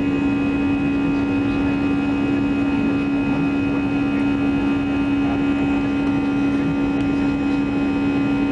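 Airbus A320 jet engines at climb power after takeoff, heard from inside the cabin: a steady hum with many steady whining tones above it over a rushing background.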